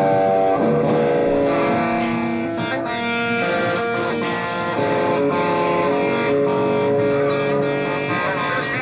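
Instrumental music led by guitar, sustained guitar notes over a steady beat, in a slowed-down chopped-and-screwed mix.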